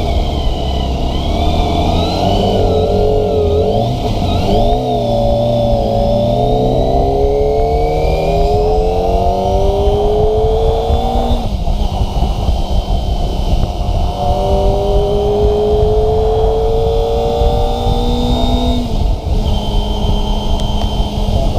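Kawasaki ZX-25RR's inline-four engine under way, revving up in long, steadily rising pulls that drop sharply about halfway through and again near the end.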